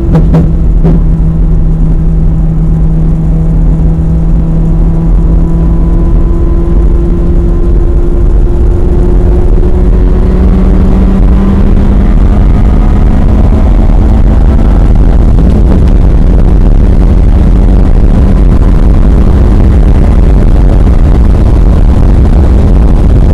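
1995 Ferrari F355 Challenge's V8 engine pulling hard at speed, heard from inside the cabin over heavy wind and road noise. The engine note holds fairly steady, shifts about ten seconds in, then climbs slowly as the car accelerates.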